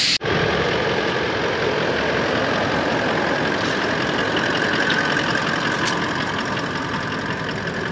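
Toyota LandCruiser 79 Series engine idling steadily.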